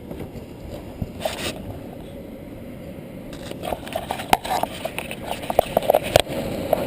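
Air handler blower motor driven directly by a motor tester, rocking back and forth with irregular clicks and scrapes that come quicker, then settling into a steady running sound near the end. The motor runs on the tester, the sign that the motor itself is sound and the fault lies in its controls.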